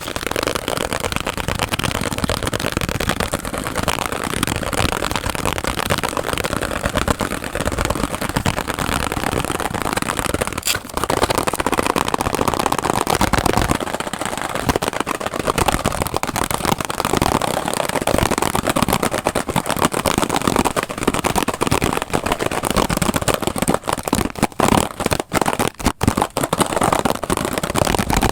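Extremely fast, aggressive ASMR tapping and hand sounds, sped up so far that the taps blur into one dense, continuous rattle. Several brief breaks in it near the end.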